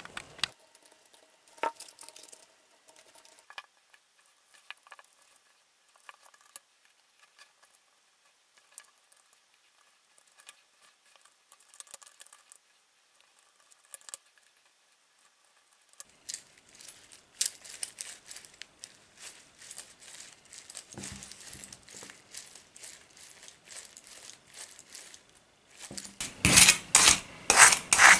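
Steel chainmail rings and small steel plates of a handmade armored gauntlet clinking and jingling softly as the plates are worked on with pliers. Near the end, a rapid run of loud metallic clicks and rattles as a blade is run against the mail.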